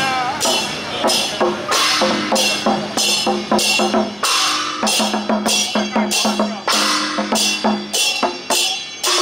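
Temple-procession gong-and-drum cart being played: a small barrel drum struck with sticks in quick strokes, with cymbal crashes about twice a second. A gong rings steadily under it from about two seconds in until near the end.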